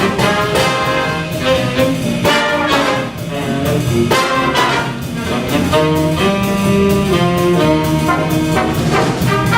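Big band playing jazz live: the brass section of trumpets and trombones carries sustained, shifting chords over a steady beat.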